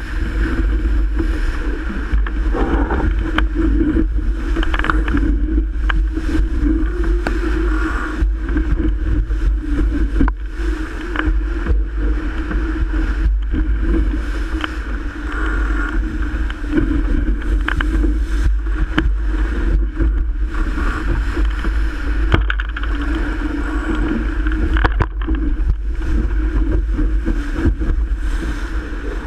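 Strong wind buffeting the microphone over the steady rush of water along a Melges 24 sailboat's hull as it sails fast in heavy wind.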